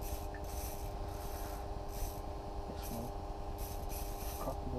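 A steady low hum under irregular, scratchy rubbing noises that come and go every half second or so.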